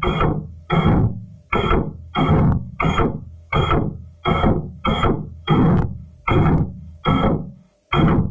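Electronic background music with a steady beat: sharp synth strokes that fade away, about two a second.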